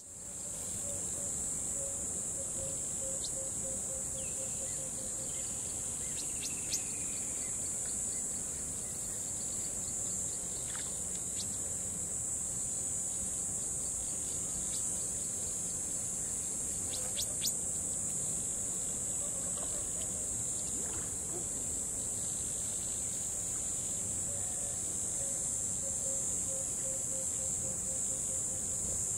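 Steady, high-pitched chorus of insects, with a lower pulsing trill in the first few seconds and again near the end, and a couple of short sharp chirps.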